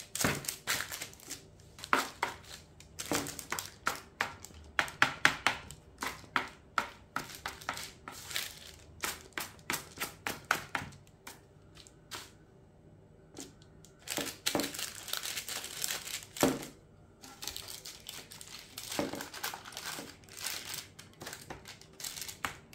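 Plastic dough scraper pressing and tapping along the sides of a log of biscotti dough on a parchment-lined baking tray, the parchment paper crinkling under the hands. Many quick taps during the first half, a short lull, then longer scraping and rustling sounds.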